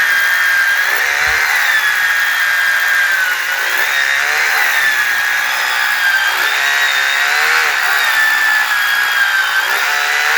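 Electric power tool running continuously with a high whine whose pitch keeps dipping and recovering as it works under load; it stops near the end.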